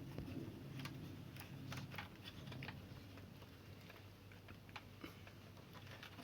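Faint, scattered small clicks and taps of wires and hand tools being worked at an air conditioner indoor unit's wiring terminal block, over a low steady hum.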